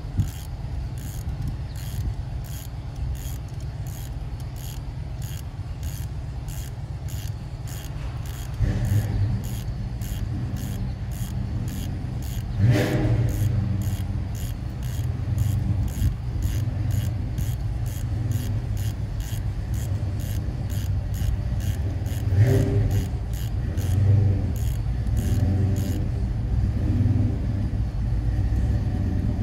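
Hand ratchet clicking in an even rhythm, about two clicks a second, as it turns a bolt on the engine. A steady low rumble runs underneath, and a few louder knocks fall in the middle part.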